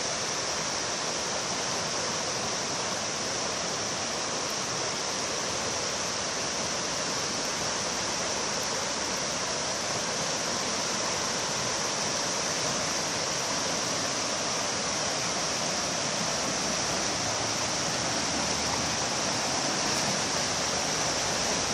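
The Pacolet River rushing, a steady rush of flowing water running high after a flood, with a steady high hiss over it.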